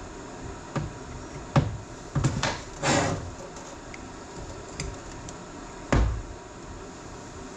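Scattered metal clunks and knocks from a tractor steering valve and hand tools being handled and set down on a workbench, about eight in all, with a heavier thud about six seconds in, over a steady background hum.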